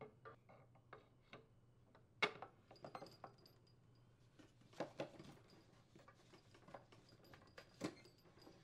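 Faint, scattered clicks and light metal knocks from a cast-aluminium crankcase cover being slid down over the crankshaft and set onto the engine block. The most distinct knocks come about two seconds in and again near five seconds.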